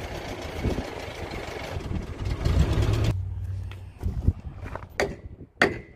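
An engine running steadily at a low idle, which cuts off suddenly about three seconds in, followed by a few sharp knocks.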